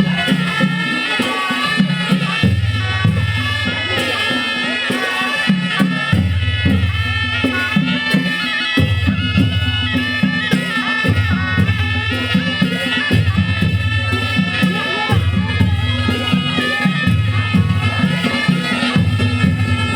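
Traditional folk music: a sustained, wind-like melody over a low bass line that shifts about every two seconds, with steady percussion.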